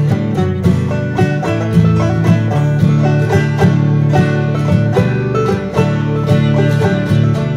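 Background music: a bluegrass-style instrumental with quick picked banjo notes over a steady beat.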